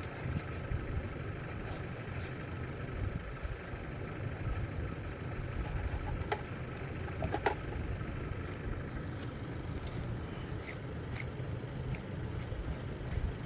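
Tractor engine idling steadily, with a few short clicks about six and seven and a half seconds in.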